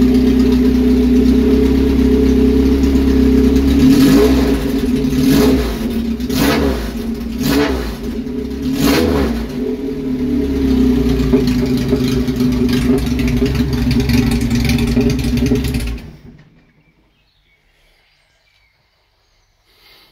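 Ford ST170 2.0-litre four-cylinder engine on Kawasaki ZX9R motorcycle carburettors, running with only the exhaust manifold fitted, so it sounds very raw. It runs steadily, is blipped on the throttle several times, and about three-quarters of the way through it is shut off and stops.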